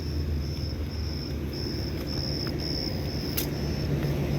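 Outdoor air-conditioner condensing unit running with a steady low hum, while an insect chirps in short, evenly spaced high pulses, about two a second.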